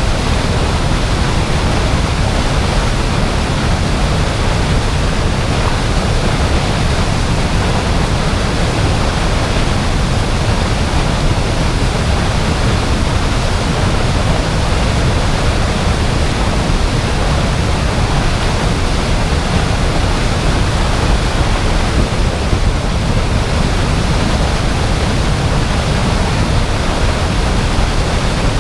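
Waterfall: a loud, unbroken rush of falling water, steady throughout with a deep low rumble under the hiss.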